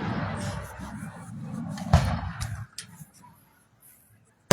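Aerial fireworks shells bursting: the rumble of a boom dies away, a sharp crack comes about two seconds in, then a lull before another heavy shell burst hits right at the end.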